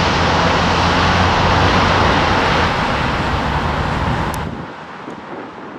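Airbus A380's four jet engines on landing approach, passing low and close: a loud, steady rushing noise with a low hum underneath, easing off about three seconds in. About four and a half seconds in it drops away abruptly, leaving fainter wind noise.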